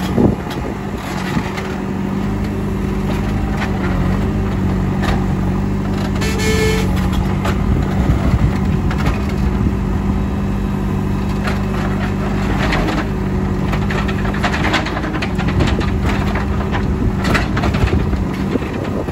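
JCB 3CX backhoe loader's diesel engine running steadily as the machine works, with frequent knocks and cracking of material being broken and crushed.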